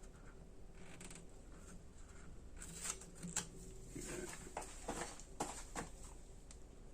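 Faint small clicks and light rustling of hands handling wire and solder while soldering a wire splice, the clicks bunched from about three to six seconds in, over a faint steady hum.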